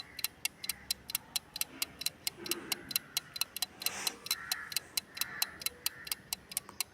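Countdown-timer sound effect: fast, even clock ticks, about five a second, with faint music underneath, stopping just before the answer is revealed.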